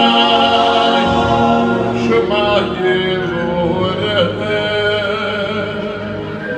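Male vocal group singing together into microphones, several voices holding long, sustained notes.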